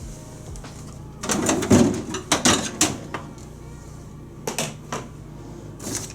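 Plastic refrigerator drawer being handled: a run of knocks and rattles starting about a second in, then a few single knocks.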